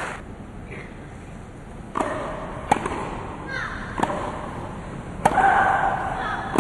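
Tennis ball struck with racquets in a rally on a grass court: a string of sharp pops about a second apart starting about two seconds in, several followed by a short grunt from a player hitting the shot.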